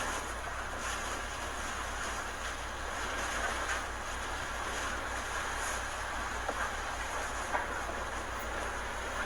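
Hurricane-force wind blowing steadily, a continuous rushing noise with a low rumble on the microphone and small surges as gusts come through.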